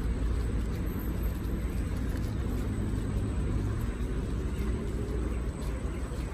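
Xiaomi Mi 1S electric scooter riding over paving, with a steady low rumble of its tyres and the wind.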